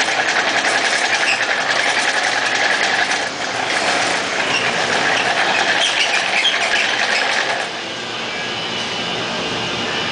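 Koike Aronson CNC plasma cutting table's gantry drive motors running through a dry-run test program, moving the torch along the cut path with no arc: a steady mechanical whir with fast fine clicking. It dips briefly about three seconds in and settles quieter just before eight seconds.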